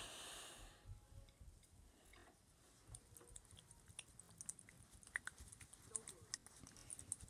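Faint scattered clicks and taps from a small plastic screw-cap bottle being shaken and turned in the hands to mix slime inside it, with a brief soft rush of noise at the start.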